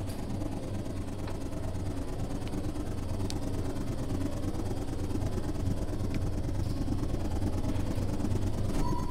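Low, steady drone from a small button accordion run through live electronics, slowly swelling in loudness, with a few faint clicks scattered through it.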